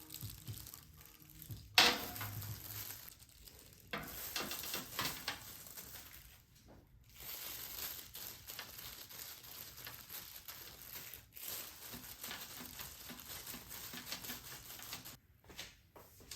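Kitchen handling noise: irregular rustling and crinkling, with a sharp click about two seconds in.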